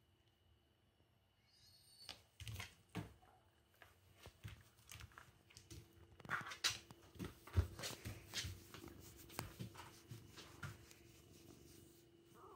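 Irregular rustling, scuffing and small knocks of close handling: the phone rubbing and brushing against the cat's fur as a hand reaches in. About two seconds of quiet come first.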